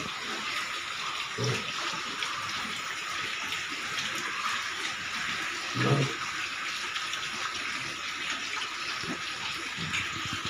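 Piglets feeding together in a concrete pen: a steady rushing, water-like noise throughout, with two short low grunts, one about a second and a half in and a louder one around six seconds.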